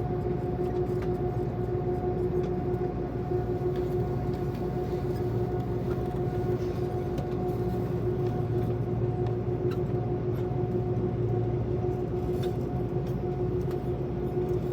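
Steady drone of an airliner cabin: continuous low rumble and air noise with a constant humming tone, unchanging throughout.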